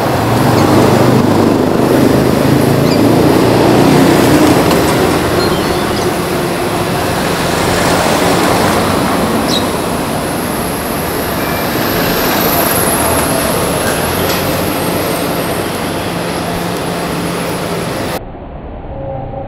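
Road traffic noise: a steady rumble of vehicle engines and tyres, with a faint high whine about halfway through. It drops to a quieter background near the end.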